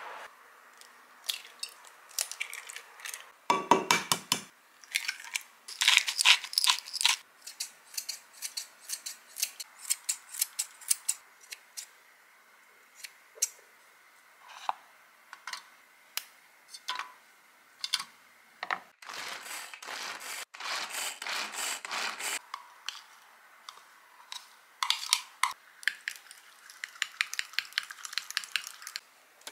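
Kitchen scissors snipping chives into egg in a glass measuring cup, sharp snips and clicks, then a fork mixing egg and grated carrot and tapping against the glass in a quick run near the end.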